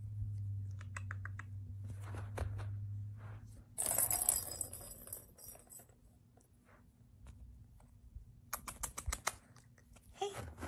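Kittens playing with toys on carpet: scattered light clicks and taps, with a loud burst of rustling about four seconds in and a cluster of clicks near nine seconds. A low steady hum runs under the first three and a half seconds.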